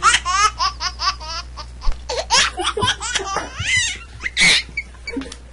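A person laughing hard: rapid high-pitched bursts of laughter, then slower, breathier peals.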